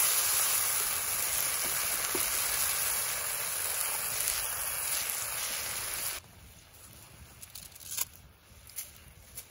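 Pork and tomato sauce sizzling in a cast-iron Dutch oven over a wood fire, a loud steady hiss that cuts off abruptly about six seconds in. After that it is much quieter, with a few sharp pops.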